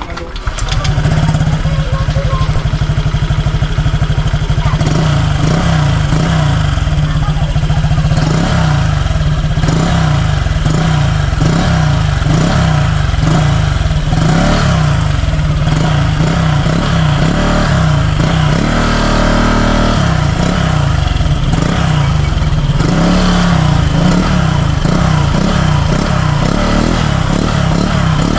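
Honda Click scooter's single-cylinder engine running through a Sun Racing Silent Killer aftermarket power pipe exhaust, starting loud about half a second in and holding steady.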